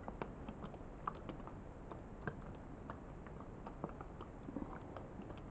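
Plastic bottle with a sprinkler cap watering soil in a seedling tray: faint, irregular patter and small ticks from water drops and the bottle's plastic.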